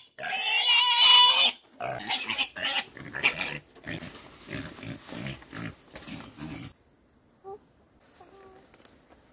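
Small black pig squealing loudly and shrilly while held up by its hind legs and pushed into a wire-mesh cage, then giving a run of short grunts that stop about seven seconds in.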